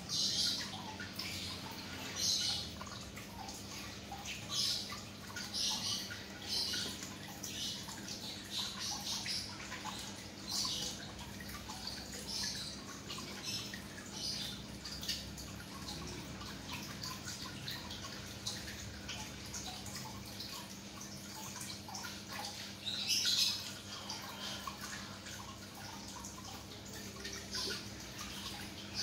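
Water dripping and trickling in irregular little splashes over a steady low hum.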